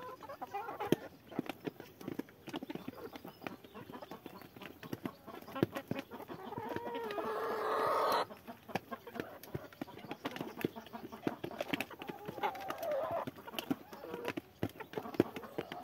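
A flock of chickens pecking feed from a tray, making a stream of quick sharp taps, with clucking. One long call swells from about six seconds in and cuts off suddenly about two seconds later.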